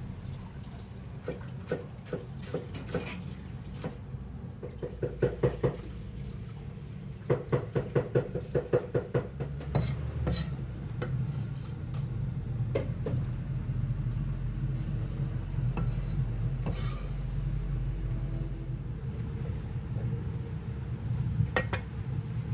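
Heavy cleaver chopping onion on a wooden board: a few single knocks, then two fast runs of chopping at about five to six strokes a second, followed by scattered lighter knocks and taps as the chopped onion is gathered.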